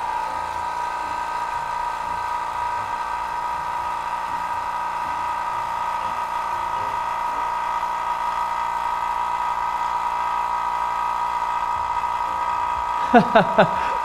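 Vacuum pump running steadily while it pumps down the vacuum chamber: a constant hum with a steady whine that does not change.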